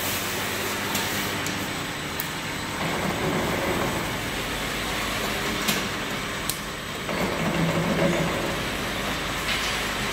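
Automatic bottle capping machine running steadily, its conveyor, star wheel and capping head giving a continuous mechanical clatter with a few sharp clicks.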